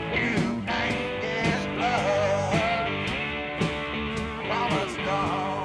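Rock music with electric guitar and a steady beat.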